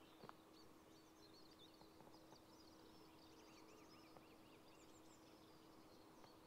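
Faint dawn birdsong: several small birds chirping and singing, with a quick run of repeated rising-and-falling notes in the middle.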